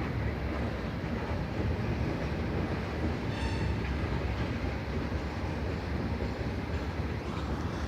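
CN freight train rolling past, a steady low rumble of wheels on the rails, with a brief high squeal about three seconds in.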